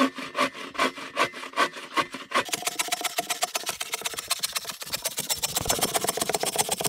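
Folding bow saw cutting through a fallen log: rhythmic back-and-forth strokes, slow at first, then much quicker from about two and a half seconds in.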